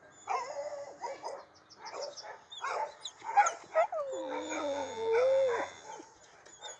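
Samoyed dog vocalising: a run of short yips and whines, then one long wavering howl about four seconds in that dips in pitch and rises again at the end.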